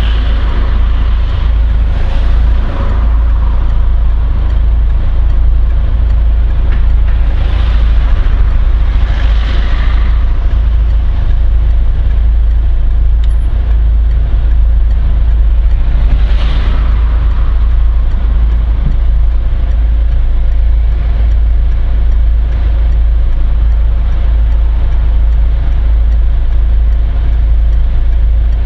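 Steady low rumble of a car idling, heard from inside the cabin while it stands at a junction. Other cars pass in front a few times, each a brief swell of road noise.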